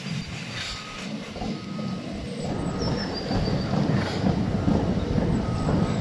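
Passenger train running on the line below: a steady rumble of wheels on rail, with faint high wheel squeals twice, and growing louder toward the end.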